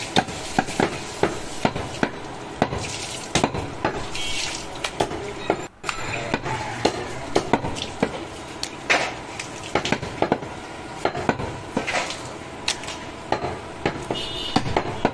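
Butcher chopping goat meat on a wooden block: irregular sharp knocks of the blade, often several a second, over a steady background hiss, with a brief drop in sound about six seconds in.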